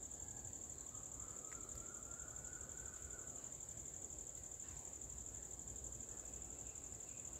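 Steady high-pitched insect trill with a fast, even pulse.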